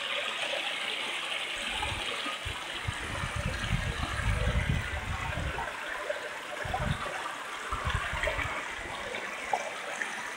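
Shallow stream trickling and running over rocks as a steady rush of water. Irregular low-pitched buffeting on the microphone comes and goes from about two to nine seconds in.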